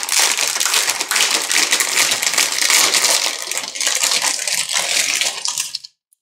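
Clear plastic bag crinkling and crackling as hands unwrap a plastic model kit sprue and slide it out of the bag. The crinkling is continuous and cuts off suddenly near the end.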